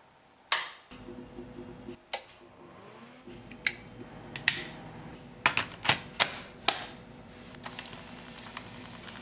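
A series of sharp mechanical clicks from switches and buttons being pressed: a bench power supply's rocker switch first, then more switch and button clicks, with the keys of a portable cassette player near the end. A low steady hum runs underneath from about a second in.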